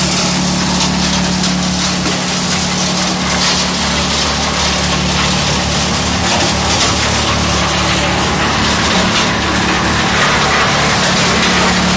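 Vibrating grizzly feeder running loaded in a stone-crushing plant: a steady motor hum under a continuous clatter and rattle of stone over the steel deck.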